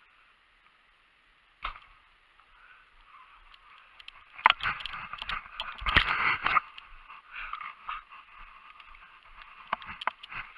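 A compound bow is shot once, with a single sharp snap about two seconds in. Around four to six seconds in, loud clattering and scuffing follow as the bow and gear are handled and moved over a gravel road, over a steady hiss.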